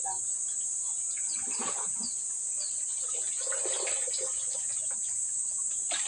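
Steady high-pitched chorus of insects, with a few short bird chirps and intermittent rustling of rubbish being pulled from a clogged drainage canal.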